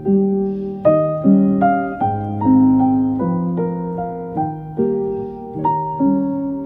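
Calm, slow piano music: single notes and soft chords struck about every half second and left to ring.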